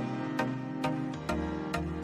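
Background music: sustained chords with a plucked or struck note about twice a second, in an even beat.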